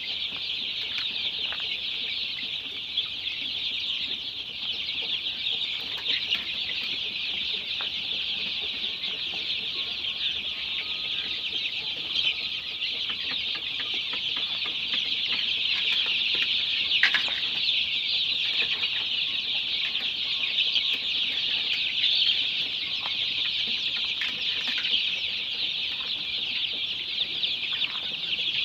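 A large flock of 26-day-old golden Misri chicks peeping all together in a steady, dense, high-pitched chorus, with a few faint knocks now and then.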